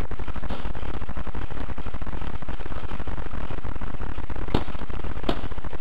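Steady electrical buzz from a helmet camera's microphone, heavy in the low end, a recording fault of the camera setup. Near the end come two sharp paintball marker shots, about three-quarters of a second apart.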